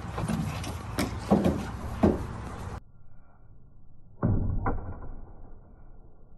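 Sharp knocks and thuds from American bully dogs lunging and jumping after a flirt-pole lure around a car, three close together and then two more. The background noise cuts off suddenly about three seconds in, leaving a quieter backdrop.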